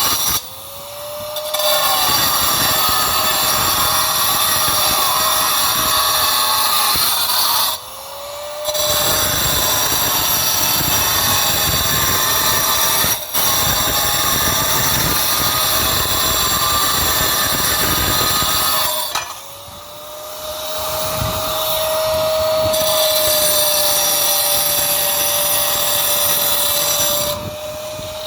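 Power tool with a spinning disc, cutting or grinding pool tile in long loud passes. Its motor whine rises as it spins up before each of three passes and falls away as it winds down at the end.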